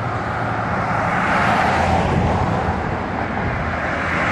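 Road traffic noise: a steady rush of cars and their tyres, swelling a little in the middle as a vehicle goes by.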